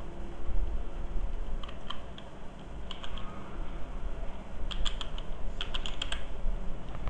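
Computer keyboard typing: several short bursts of keystrokes, the busiest about five to six seconds in, over a steady low hum.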